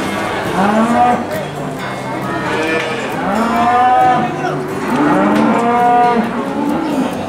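Cattle mooing: about four drawn-out calls, each rising and then falling in pitch, some overlapping at different pitches.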